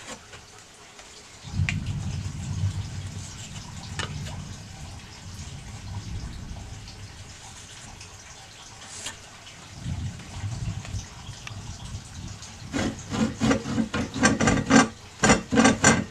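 A low rumble with a few light clicks, then, about 13 seconds in, a handsaw cutting across the end of a wooden mattock handle in quick, even strokes, about three a second, sawing a slot into the end grain.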